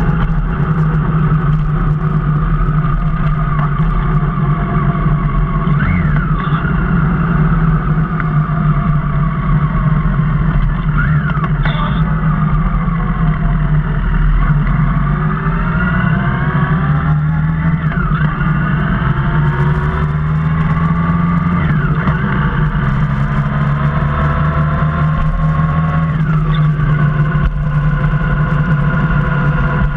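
Motorcycle engine under way, its pitch climbing as it accelerates and dropping back sharply about five times at the gear changes, over a steady low rumble.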